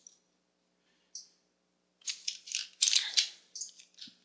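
Computer keyboard keystrokes and mouse clicks: a single click about a second in, then two quick clusters of clicks, as text is copied and pasted.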